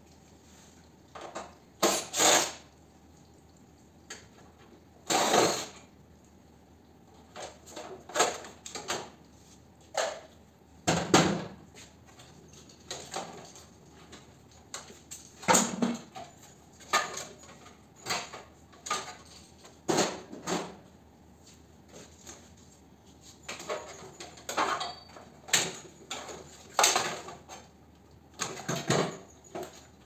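Irregular knocks, clanks and rattles of metal parts and hand tools as an air-conditioner outdoor unit is taken apart by hand: wiring pulled free and the fan-motor bracket and sheet-metal parts handled and set down.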